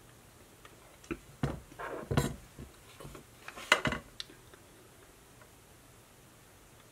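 Handling clicks and knocks from a hot glue gun and a metal snap clip being worked over a glass cutting mat: a scatter of short sharp sounds between about one and four seconds in, the loudest near the end of that stretch.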